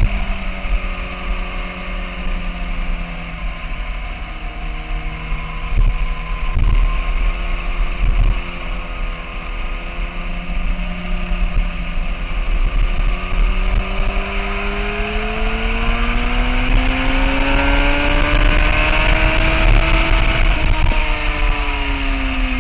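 Sport bike engine at speed on a racetrack, under heavy wind noise on the bike-mounted microphone. It holds a steady note through a long corner with a few short knocks, then rises in pitch for several seconds as the bike accelerates out onto the straight, and drops back about two seconds before the end.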